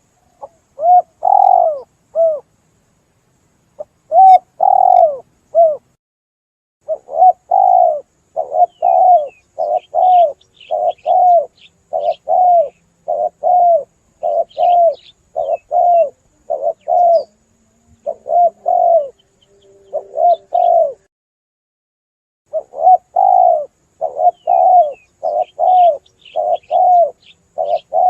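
Spotted dove (tekukur) cooing: run after run of low rounded coo notes in phrases broken by short pauses, a lure call for drawing doves in. Faint high chirps from small birds sound here and there behind it.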